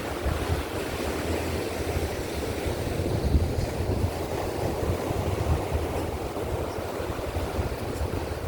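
Wind buffeting the microphone in gusts, with the steady wash of ocean surf underneath.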